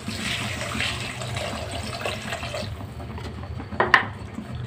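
Water pouring in a stream into a metal pan of sautéed vegetables, splashing steadily and growing softer after about two and a half seconds. A single sharp metallic clink about four seconds in.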